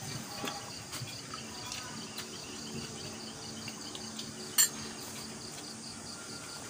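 Night insects chirping in a fast, steady pulsing rhythm, with light clinks of plates and spoons and one sharp clink about four and a half seconds in.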